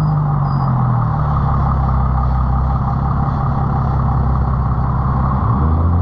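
Straight-piped Nissan 350Z's VQ35 V6 exhaust running steadily at low revs, with a deep, even note. Near the end the pitch starts to climb as the engine is revved up.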